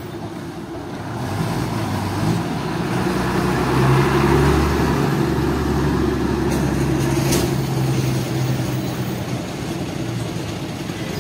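Old Leyland bus with a Hino diesel engine pulling away and driving past, its engine hum swelling to its loudest about four seconds in, then easing off slowly as the bus moves away.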